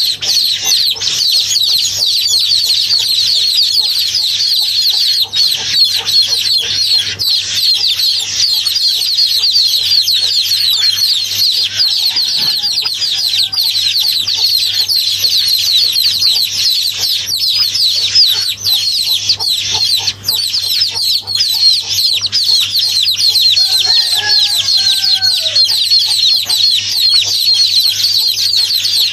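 Many birds chirping continuously in a dense chorus of short, high, falling peeps, over a steady low hum.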